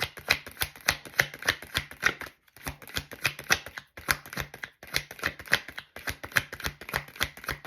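Tarot cards being shuffled by hand: a quick run of papery clicks and slaps, broken by a few brief pauses.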